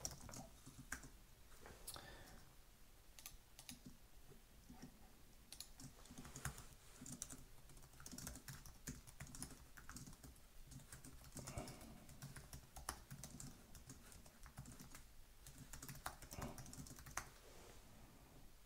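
Faint typing on a computer keyboard: quick runs of irregular keystrokes separated by short pauses.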